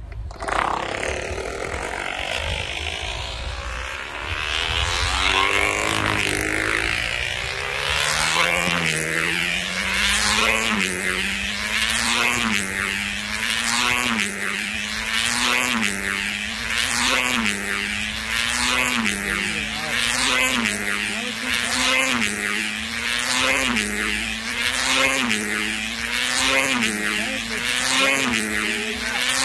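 Tether race car's small two-stroke engine being pushed off and building speed around the circular track. Its high whine grows louder over the first several seconds, then rises and drops in pitch about every second and a half as the car passes on each lap.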